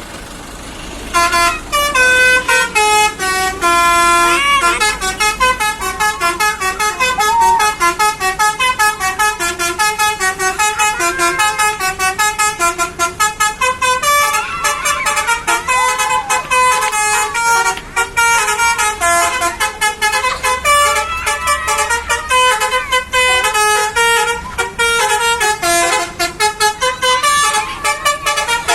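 Indonesian bus 'telolet' horn, a set of multi-tone air horns, playing a rapid string of short pitched notes as a tune. It starts about a second in and keeps going without a break, with a few sliding notes among them.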